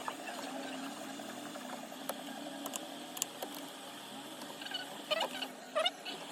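Small hand tools working on a phone over a steady machine hum: light clicks, then a few short scraping strokes near the end.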